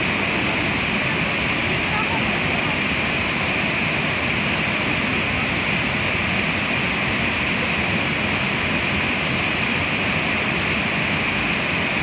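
Waterfall pouring into a rocky pool: a steady, even rush of falling water.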